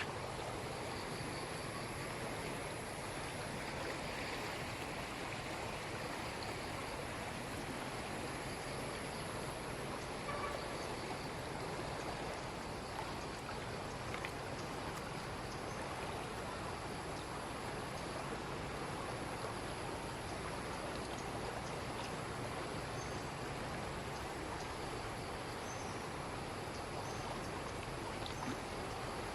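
Steady rush of flowing floodwater.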